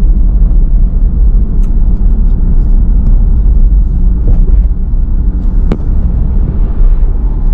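Steady low rumble of a car driving: road and engine noise, with a faint sharp click a little after halfway.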